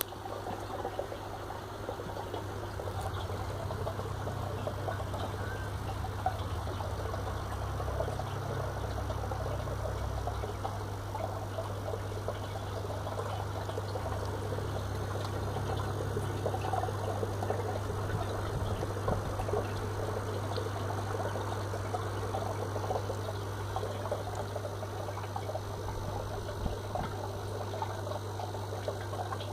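Fluval FX6 canister aquarium filter running with a steady low buzz, over the sound of water trickling and flowing. The filter is otherwise working normally.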